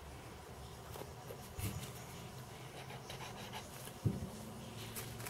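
Faint rubbing and handling noise as strips of craft foam are pressed and moved against a foam ball, with a short knock about four seconds in.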